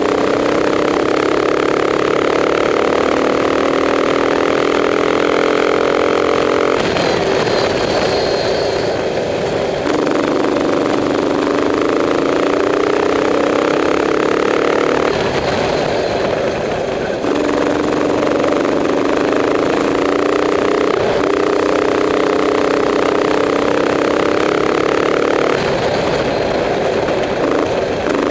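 Onboard racing kart engine running hard. Its pitch climbs slowly along each straight and breaks off three times for a second or two as the driver eases off for corners: about seven seconds in, about fifteen seconds in, and near the end.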